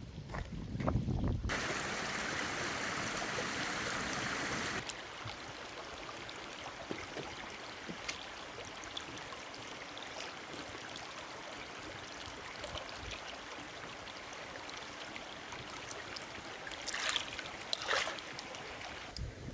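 Running water: a louder rush for a few seconds near the start, then a steady softer flow with scattered small clicks and knocks.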